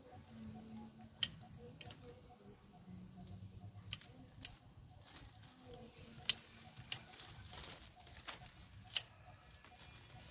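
Pruning shears snipping ficus (rubber fig) branches: about nine short, sharp snips at irregular intervals, a second or two apart.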